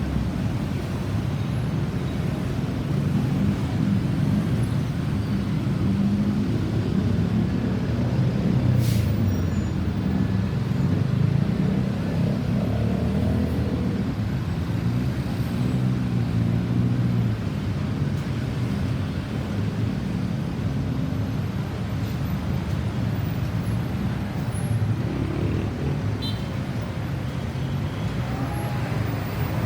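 Road traffic noise: a steady low rumble of vehicles going by, with one brief sharp click about nine seconds in.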